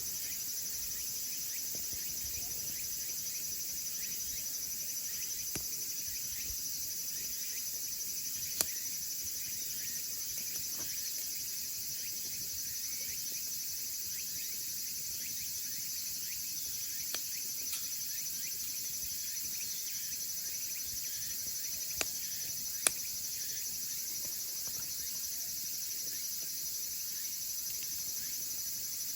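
Firewood burning in a small wood stove, giving a few sharp pops, the loudest about two thirds of the way through. Underneath is a steady high-pitched chirring of insects.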